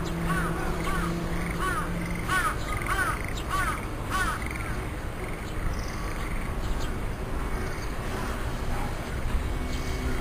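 A bird calling a run of about nine harsh, arched calls, roughly two a second, which stops about halfway through.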